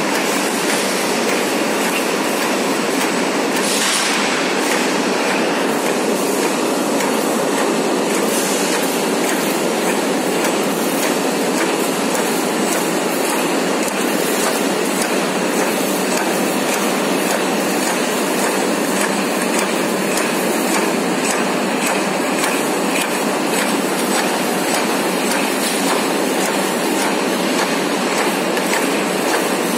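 Cold pilger mill running: a steady, dense mechanical clatter of machinery and steel tubes, full of fine rapid clicks, with no let-up.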